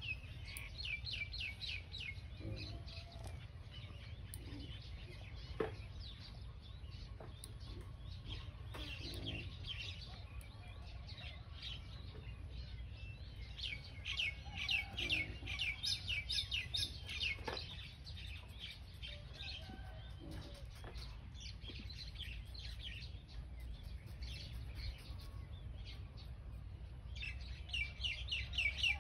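Birds chirping in quick runs of short, high repeated notes. The runs come in bursts about a second in, around the middle, and near the end, over a steady low rumble. There are a couple of single sharp clicks.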